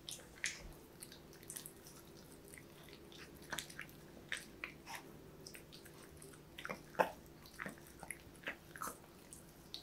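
A puppy eating from a metal plate of salmon, broccoli and chicken-tofu, chewing in irregular short wet clicks, with one louder click about seven seconds in.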